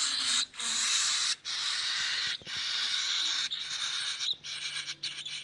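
Baby cockatiel chicks giving hungry food-begging calls: hissing, rasping buzzes about a second long, one after another with short breaks, turning shorter and choppier near the end.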